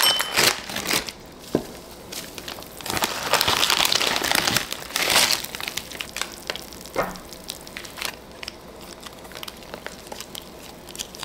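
Plastic Samyang instant-noodle wrapper crinkling and rustling as it is opened and handled, densest about three to five seconds in, followed by sparser crackles as small seasoning packets are handled and squeezed.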